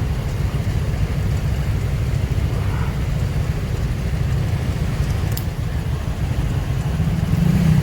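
Riding noise on a motorcycle taxi: a steady low rumble of engine and wind, growing a little louder near the end.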